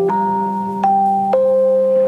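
Music: a sustained keyboard melody over a held low note, the upper note stepping down three times.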